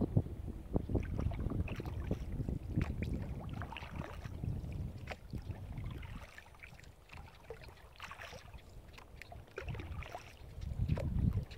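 Kayak being paddled over choppy water: small splashes and drips of water around the plastic hull and paddle, over a low wind rumble on the microphone that eases off in the middle and picks up again near the end.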